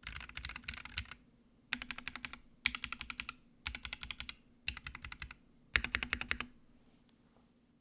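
Typing on a custom mechanical keyboard: a polycarbonate Sirius case, top-mounted with a POM plate, lubed Gateron Black Ink v2 linear switches and PBT keycaps. The keystrokes come in six quick bursts of rapid presses with short pauses between them, and stop a little over a second before the end.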